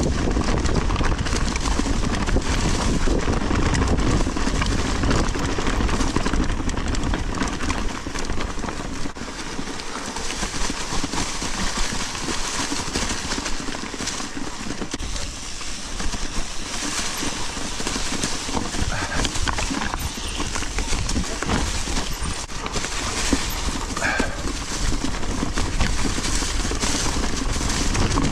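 Mountain bike riding over a rough dirt trail: tyre noise with frequent rattles and knocks from the bike over bumps, and wind rumbling on the microphone, heaviest at the start and end. A brief squeak about three-quarters of the way through.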